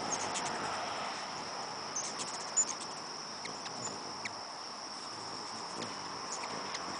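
Steady high-pitched insect chorus, like crickets, with a few short high chips from hummingbirds over it; the loudest chip comes about two and a half seconds in.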